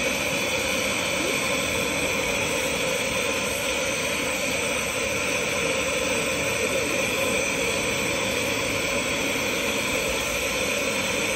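Glassworking bench torch burning with a steady, even rushing hiss as glass is worked in the flame.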